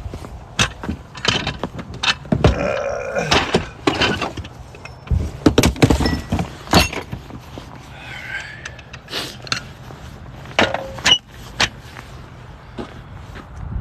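Irregular knocks and clatter: a dozen or so sharp hits spread through, with a busier run of clattering a couple of seconds in and another about eight seconds in.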